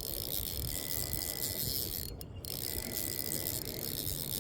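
Fishing reel being cranked to wind in a hooked fish, a steady mechanical ratcheting of the reel's gears.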